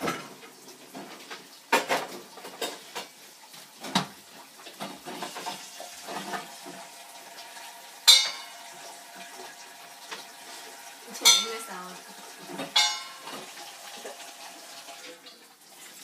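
Dog food bowls clanking and rattling in a kitchen sink as a puppy works at them, with several sharp clanks, some ringing on briefly, among softer knocks.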